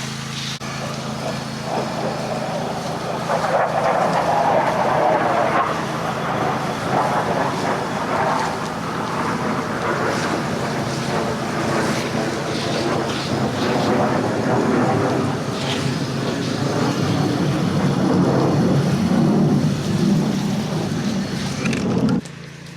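Pressure washer engine running steadily under the hiss of a soap-mix spray hitting the house. The spray cuts off suddenly near the end while the engine keeps running.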